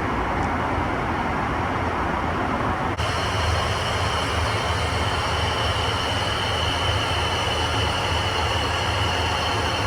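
Steady cabin noise inside an Airbus A380: a low hum and airflow rush from the Rolls-Royce Trent 970 engines. About three seconds in, the sound changes abruptly, with more hiss and a steady high whine added.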